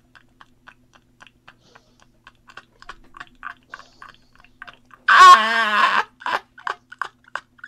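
A man laughing in short, breathy puffs that come quicker and louder, breaking into one loud, high-pitched laugh about five seconds in, then more puffs.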